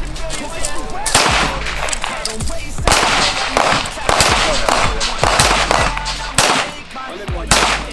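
Semi-automatic pistol firing single shots, a handful of them spaced roughly one to two seconds apart, over background music.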